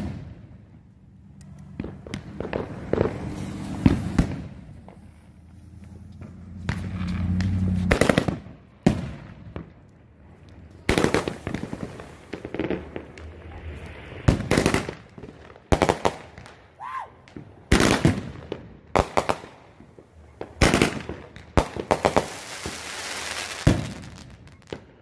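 A consumer fireworks cake (repeater box) firing its shots one after another: sharp bangs about a second or two apart, with a stretch of hiss near the end.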